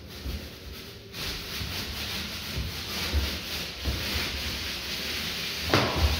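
Paint roller on an extension pole rolling wet paint across a wall: a steady rubbing hiss that comes in repeated strokes, starting about a second in. Low thumps sound underneath, with a louder knock near the end.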